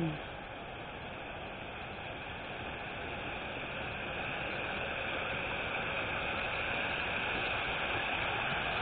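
Water from a fountain spilling off a raised trough into its basin: a steady splashing rush that grows gradually louder.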